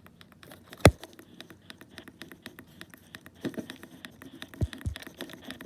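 A quick run of small, evenly spaced clicks, about eight a second, thinning out after a couple of seconds. There is one sharp, louder click about a second in, then a few soft knocks and two low thumps near the end.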